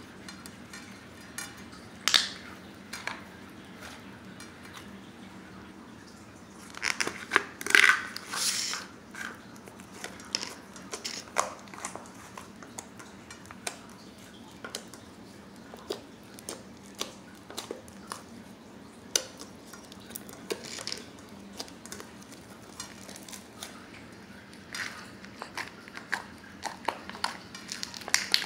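Slime being squished and poked by hand, giving scattered clicks and crackles, with a busier, louder run of pops about seven seconds in.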